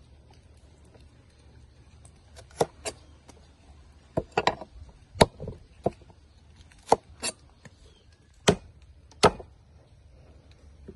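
Heavy cleaver chopping okra on a thick round wooden stump board: about ten sharp, irregularly spaced knocks, starting about two and a half seconds in, the loudest near the middle.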